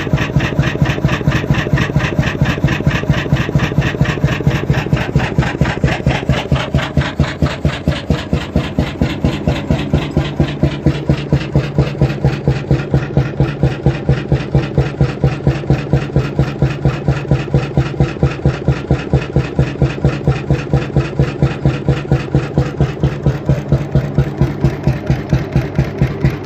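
Krimo hot-bulb oil engine, a single-cylinder 21.9-litre, 35 hp unit built in the late 1930s by Kristdala Motorfabrik, running with a steady rhythmic beat.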